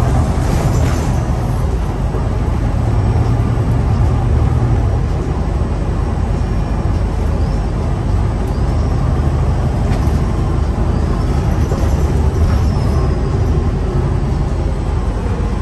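Inside a moving city bus: steady engine drone and road noise, heaviest in the low end.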